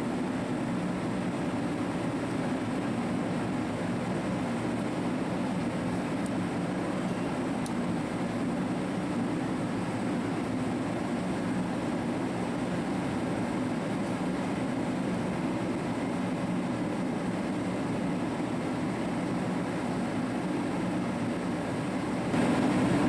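A shop heater running with a steady, unchanging rush.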